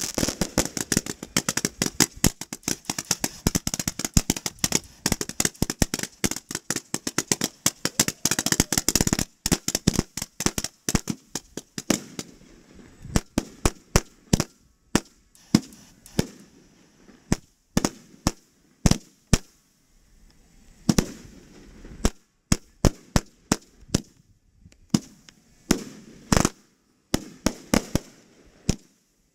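Fireworks display: a dense, rapid run of bangs and crackle for about the first twelve seconds, then separate loud bangs at irregular gaps of a second or so.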